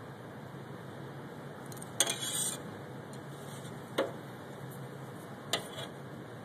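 Utensils clinking against plates and dishes: a sharp clink about two seconds in followed by a short rattle, another single clink about two seconds later, and a quick double clink near the end, over steady room hiss.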